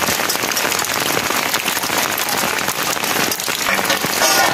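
Steady rain pattering densely on the ground and surfaces around, with a brief pitched sound near the end.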